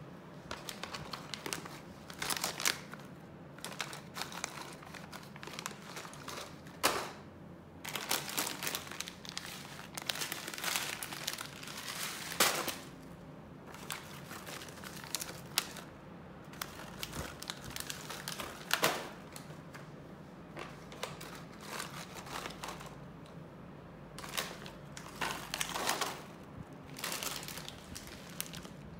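Plastic snack packets crinkling in irregular bursts as they are dropped into and lifted out of a plastic shopping basket, over a steady low hum.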